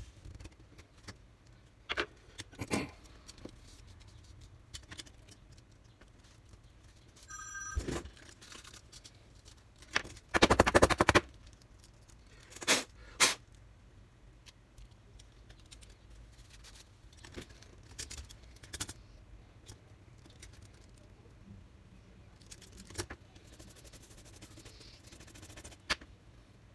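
Laptop disassembly handling sounds: scattered clicks and taps of plastic casing parts and small tools, with a brief dense rattle of clicks about ten seconds in, which is the loudest moment, and two sharp clicks a couple of seconds later.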